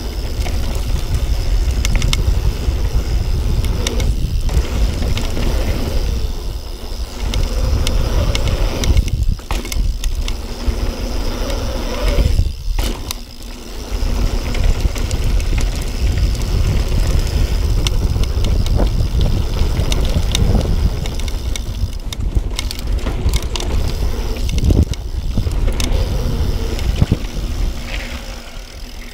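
Yeti SB6 mountain bike descending a dirt trail at speed: a steady low rumble of tyres on packed dirt, with scattered clicks and rattles from the bike. The rumble drops away briefly a few times.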